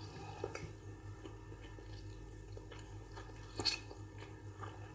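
Faint chewing and soft wet mouth sounds of someone eating rice and beans, with small scattered clicks and one sharper click about three and a half seconds in.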